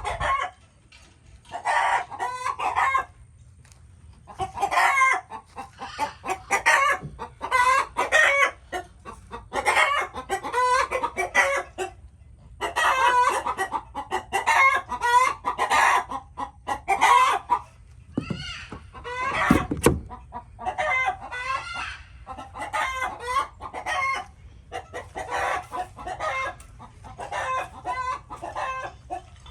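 Chickens clucking and calling over and over, one call following another every second or two. A brief sharp knock about two-thirds of the way through.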